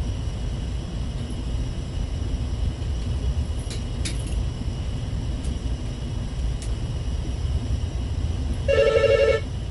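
Mobile phone ringing: one short electronic ring of several stacked tones, about a second from the end, over a steady low rumble.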